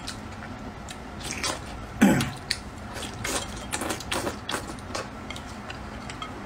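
A person eating dumplings in spicy soup: wet chewing and slurping with many small mouth clicks. About two seconds in comes one short, loud throat-clearing sound.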